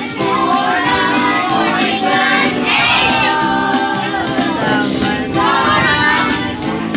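A group of voices singing a song together over instrumental backing music.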